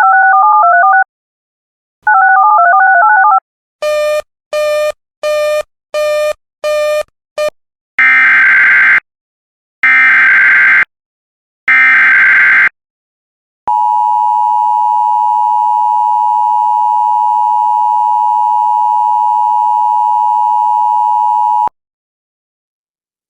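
Electronic alert tones: a short stepping tone sequence played twice, then seven quick beeps that get shorter. Then three one-second bursts of Emergency Alert System SAME header data, and the steady two-tone EAS attention signal held for about eight seconds, announcing a new alert.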